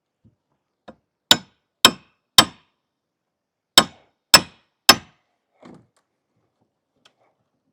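Six hammer blows in two sets of three, about half a second apart, knocking apart a wooden bench built into a deck, with a softer knock after the last set.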